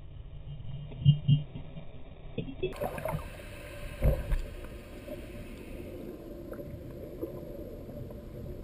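Muffled underwater sound from an underwater camera: a steady low rumble of moving water with dull thumps, a pair about a second in, another pair about four seconds in, and a loud one near the end.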